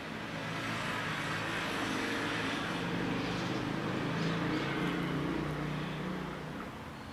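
A vehicle passing by: a low engine hum under a rushing hiss that swells up and fades away over about six seconds.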